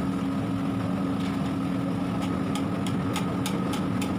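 A steady, engine-like hum with scattered sharp ticks.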